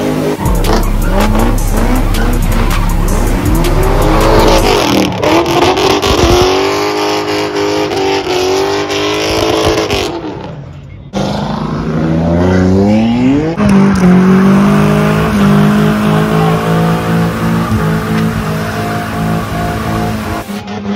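Cars doing burnouts and donuts: high-revving engines rising and falling in pitch as the throttle is worked, over the screech and hiss of spinning tyres. The sound changes abruptly twice, about five seconds in and just past ten seconds in, as one car's run gives way to another's.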